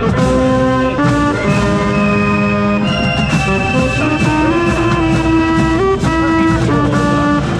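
University marching band playing a loud brass-heavy tune, sustained chords over steady drum hits, heard from inside the band among the saxophones.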